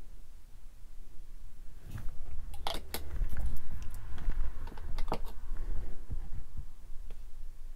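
Fingers handling small plastic parts at close range: a few light clicks and taps, bunched about two to three seconds in and again around five seconds, over a low rumble of handling noise.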